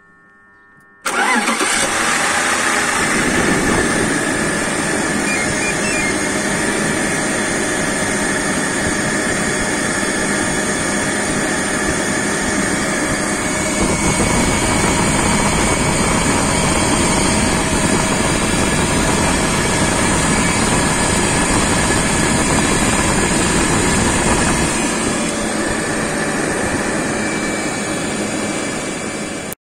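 BMW M52TU straight-six engine running at a steady idle, heard close up in the engine bay. It comes in abruptly about a second in and cuts off sharply just before the end.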